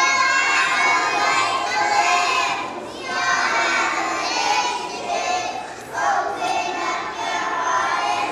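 A group of preschool children singing a song together, half-shouting the words, in phrases that break about every three seconds.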